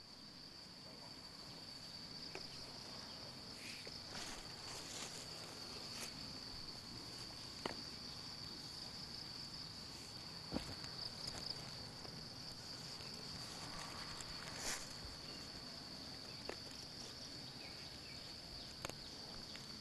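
Insects trilling steadily at a high, even pitch, faint. Scattered soft clicks and rustles from the cord and tarp being handled sound over it.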